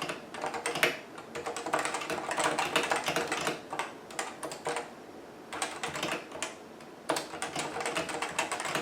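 Typing on a CM Storm Novatouch TKL, a keyboard with Topre-style hybrid capacitive switches: a quick, irregular run of key presses, broken by two short pauses in the middle.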